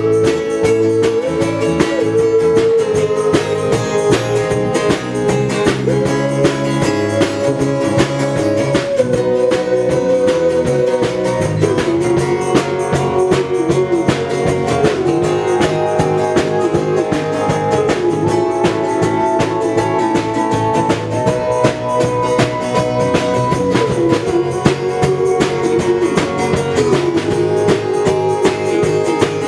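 Live band playing a rock song: electric guitar, bass guitar and keyboards over a steady beat.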